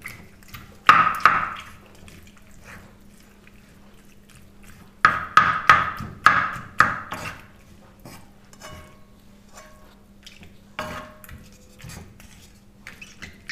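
Wooden spatula scraping and knocking against a non-stick frying pan while stirring boiled pasta into chicken mince. There is one stroke about a second in, a quick run of strokes from about five to seven seconds in, and another near eleven seconds, over a faint steady hum.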